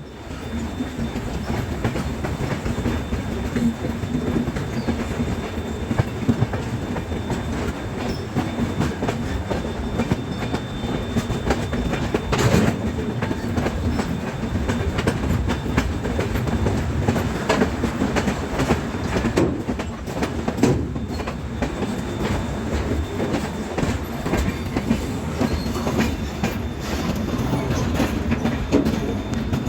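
Express train running at speed, its wheels clattering over rail joints in a steady clickety-clack over a continuous rumble, with one louder knock about twelve seconds in.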